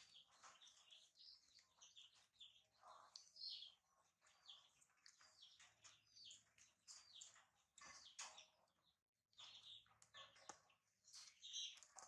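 Faint small birds chirping in the background: many short, high chirps scattered throughout, over an otherwise near-silent scene.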